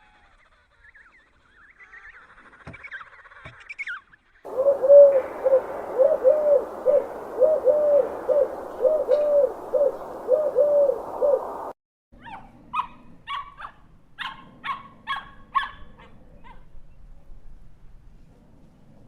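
A sequence of animal calls: a run of a dozen or so short hooting calls over steady background noise that cuts off abruptly, then a quick series of sharp chirping calls.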